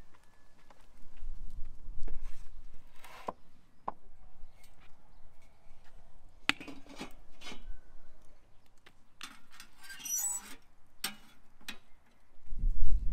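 Scattered knocks and clinks of cookware being handled: a steel wok lifted onto a round metal fire stove and tongs working in its firebox, with a busier metallic clatter about ten seconds in and a low rumble near the end.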